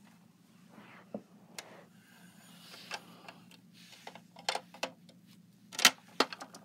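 Small plastic toy figures and playset pieces being handled and set down: scattered light clicks and taps, with the loudest pair of clacks near the end.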